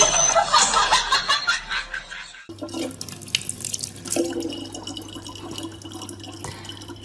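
A loud, crackly burst of noise for about two and a half seconds, then a thin stream of water from a faucet running steadily into a plastic water bottle.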